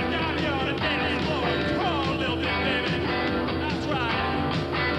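Psychobilly band playing rock and roll live: electric guitar with bending, sliding notes over a steady drum beat.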